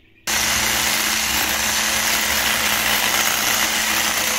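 Electric mixer switched on about a third of a second in, then running steadily with a constant hum as it whisks eggs and sugar into a foamy cake batter.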